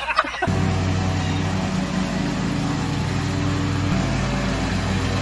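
Riding lawn mower engine running at a steady hum, cutting in abruptly about half a second in; its note shifts slightly about four seconds in.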